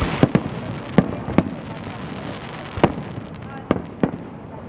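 Fireworks shells bursting overhead: about seven sharp bangs at uneven gaps, two in quick succession right at the start, over a steady rushing background.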